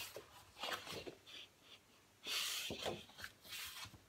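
Sheets of scrapbook paper being turned over and slid across one another, rustling in a few short swishes, the longest and loudest a little past the middle.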